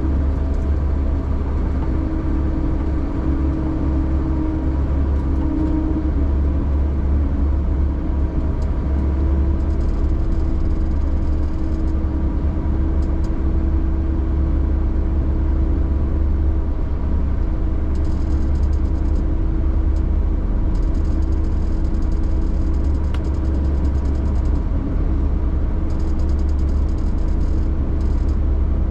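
A vehicle's engine running steadily, heard from inside the cab as a deep, even rumble with a steady hum over it.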